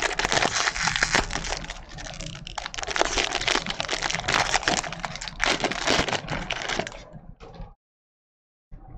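Foil wrapper of a baseball card pack crinkling and crackling as it is torn open and handled. The crinkling stops about seven seconds in and the audio cuts out entirely.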